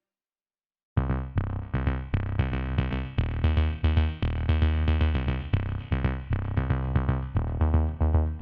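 Silence for about a second, then electronic music with a drum-machine beat, synthesizer and heavy bass starts suddenly.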